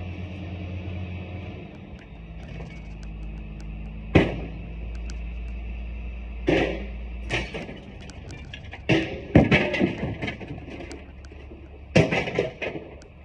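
Scrap metal thrown onto a scrap pile: about half a dozen sharp metallic clangs with ringing tails, irregularly spaced, over background music with steady low bass notes.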